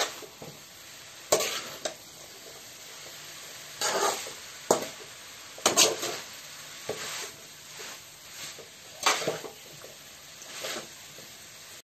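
Egg noodles stir-fried on a high flame in a metal pan: a spatula tossing the noodles and knocking and scraping against the pan about every second, over a steady sizzle.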